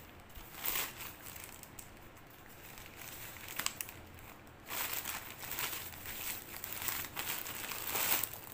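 Thin plastic courier mailer crinkling as hands pull it open and handle it, in short bursts of rustling that grow busier in the second half.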